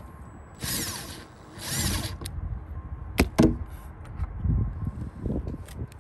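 Two short runs of a power tool, each about half a second, followed a second later by two sharp metallic clicks in quick succession, with softer handling knocks on the metal roof plate.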